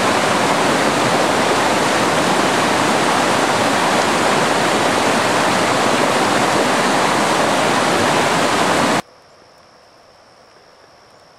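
Loud, steady rush of flowing water, like a stream or waterfall, cutting off abruptly about nine seconds in. A faint steady high hum follows.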